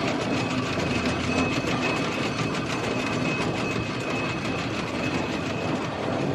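1928 Fowler B6 steam road locomotive running under test, its engine and motion making a steady, even mechanical clatter, with its freshly repaired bearings being watched for overheating.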